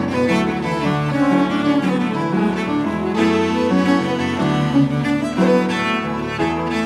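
Bowed cello playing a flowing melody of sustained notes.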